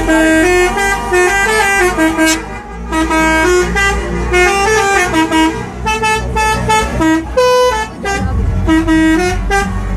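Telolet multi-tone bus horn playing a quick melody of short stepped notes, with a longer held note about seven and a half seconds in, over a steady low rumble.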